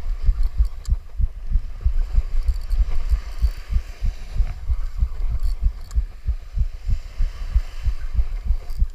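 Wind buffeting the microphone, making an irregular low rumble of thumps.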